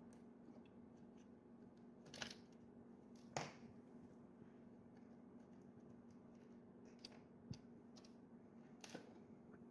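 Near silence with a faint steady hum, broken by four small clicks and knocks; the loudest comes about three and a half seconds in.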